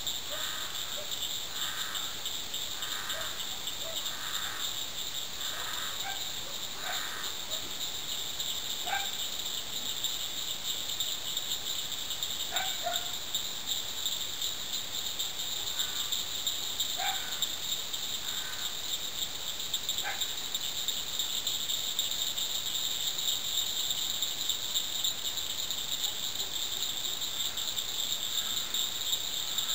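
Insect chorus, a steady high trilling. Over the first several seconds another animal gives a run of short calls about once a second, then single sharp calls now and then.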